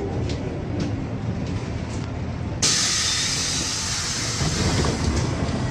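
NefAZ 5299 city bus running with a low rumble, then about two and a half seconds in a sudden loud hiss of compressed air released from the bus's pneumatic system, fading over a couple of seconds.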